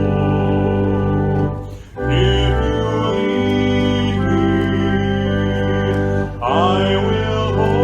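Organ playing held hymn chords, with a short break about two seconds in and another near the end.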